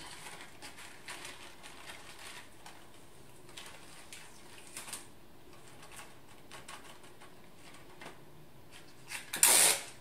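Light rustling and small knocks of a paper lantern being handled on a table, then, about nine and a half seconds in, a short loud rasp of sticky tape pulled off a dispenser roll and torn off.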